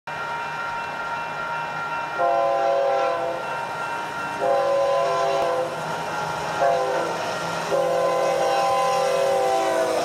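Sound-equipped model of BNSF diesel locomotive 5931 sounding its horn through its small onboard speaker in the grade-crossing pattern: long, long, short, long. A steady engine hum runs under the blasts.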